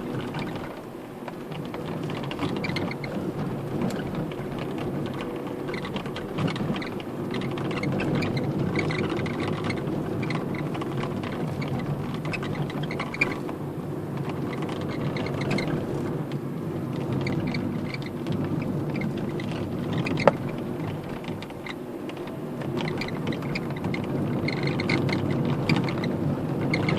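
Hyundai Solaris dashboard squeaking in short, high bursts that come and go every second or two over the steady rumble of the car driving, heard from inside the cabin; there is one sharp click about twenty seconds in.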